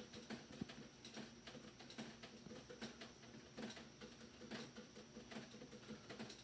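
Near silence with faint, scattered small clicks and rustles.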